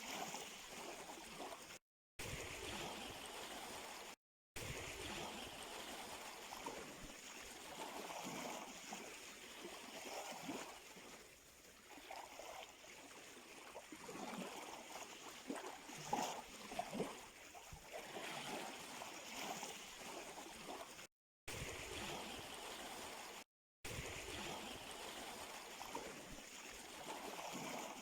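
Sea surf: small waves washing and gurgling on the shore in irregular swells, cut by four brief drop-outs to dead silence.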